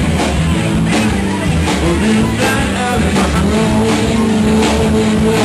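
Live rock band playing loud amplified music, drums keeping a steady beat under long held notes.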